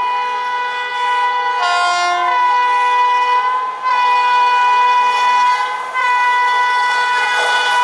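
Indian Railways train horn sounding in long, nearly continuous blasts, broken briefly about four and six seconds in. A second chord of different notes joins for under a second about two seconds in.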